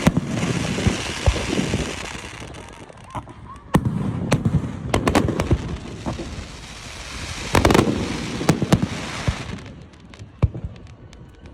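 Fireworks: three volleys of aerial shells going off about four seconds apart, each followed by a hissing, crackling shower of small sharp pops. The display dies down near the end.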